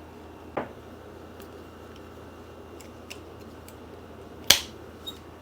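Sharp clicks of tools and parts while reassembling an ebike's rear wheel: a small click about half a second in and a loud one about four and a half seconds in, followed by a fainter one, over a low steady hum.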